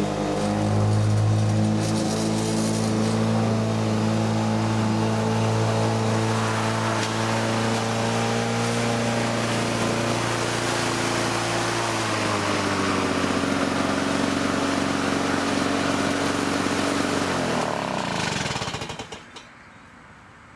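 Lawn-Boy 10520 mower's two-stroke F-series engine running under load as it cuts thick, damp grass, its pitch dipping slightly partway through. Near the end the engine is shut off and winds down to a stop.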